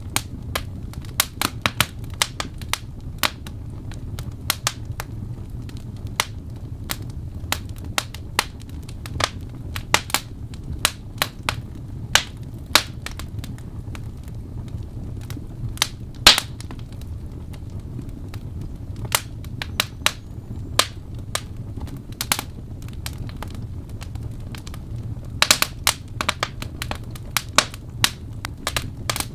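Wood fire crackling in a fireplace: irregular sharp pops and snaps, some in quick clusters, over a steady low rumble of burning.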